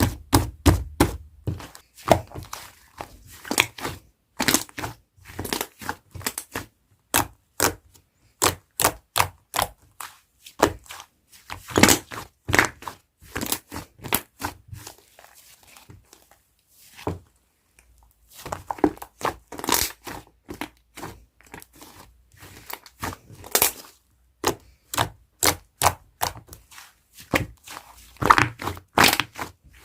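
Hands squishing and poking yellow slime, making sharp clicking and popping sounds in irregular clusters of several a second with brief pauses between.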